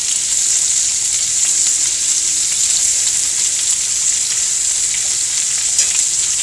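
Lamb chops searing in a hot pan, sizzling steadily, with a few faint ticks from the pan about five seconds in.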